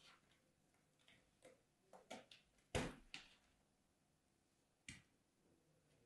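Kinetic sand being crumbled and squeezed between fingers: a scattered run of soft, short crunches, the loudest a little before three seconds in and a last one near five seconds.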